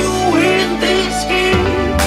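A pop song with a female singer over guitar and a bass line that changes about one and a half seconds in.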